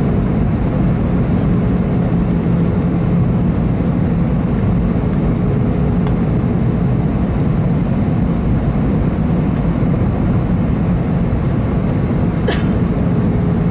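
Steady cabin noise inside an Airbus A320 in flight: a constant engine and airflow rush with a low hum. A faint steady tone drops out for a few seconds in the middle, and there is one faint click near the end.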